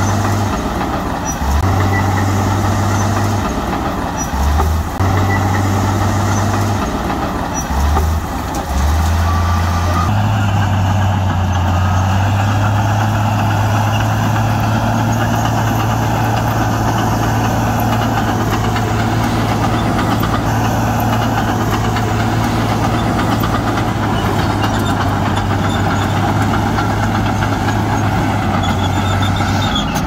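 Heavy earthmoving machinery's diesel engine running, a loud low hum that breaks off briefly a few times in the first ten seconds, then runs steady.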